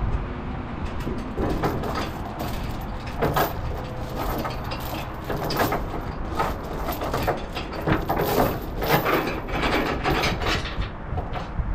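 Irregular clanks and knocks of a steel tie-down chain and wooden cribbing blocks being handled, over a steady low hum.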